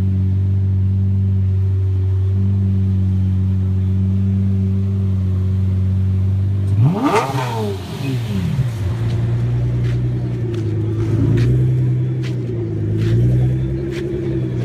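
Lamborghini Murciélago's V12 idling steadily, then blipped once about halfway through in a sharp rev that shoots up and falls back within about a second. After that the engine note keeps rising and dipping in a few lighter revs.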